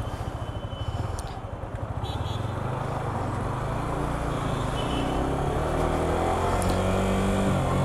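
Yamaha R15 V4's 155 cc single-cylinder engine running at low revs, then rising steadily in pitch and growing louder as the motorcycle accelerates.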